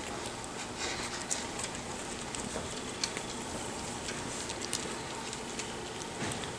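Five-week-old puppies wrestling on fleece bedding: soft scuffling and rustling, with scattered small clicks over a steady hiss.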